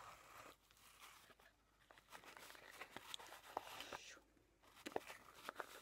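Faint rustling and scraping of yarn being drawn over and under the warp strings of a hand-held cardboard loom, with a few small clicks and taps against the cardboard.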